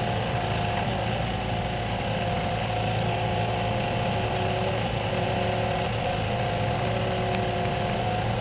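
An engine running steadily at constant speed, with a steady hum and no revving.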